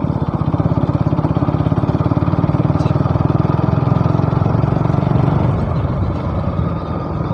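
Motorcycle engine running steadily with a fast, even firing beat, easing off a little about five and a half seconds in.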